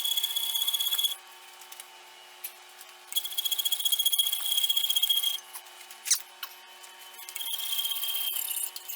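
A metal scribe scratching layout lines into a blued metal sword guard: three passes of quick, rasping strokes, each with a thin high squeal, and a single knock between the second and third.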